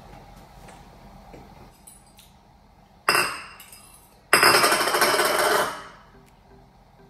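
A metal fork strikes a white ceramic bowl with a ringing clink about three seconds in. About a second later it clatters and scrapes against the bowl for about a second and a half.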